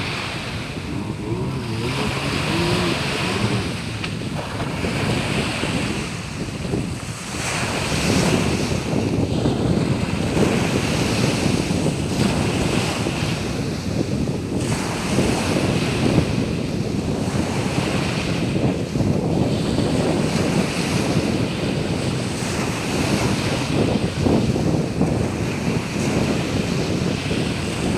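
Sea waves washing onto a sandy beach, with wind buffeting the microphone.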